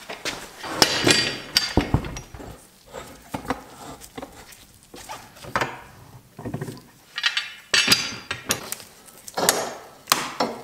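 Steel sash clamps clanking and clinking as they are set across a glued door joint and tightened: irregular metal knocks with a brief ring, the loudest about a second in and again near the end.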